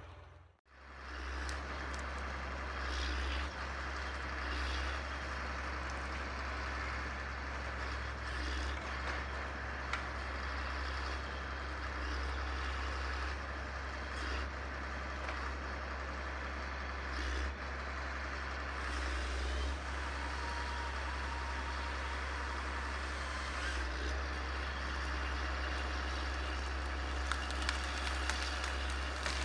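Heavy diesel logging machinery running steadily, a deep continuous engine rumble with a few brief knocks.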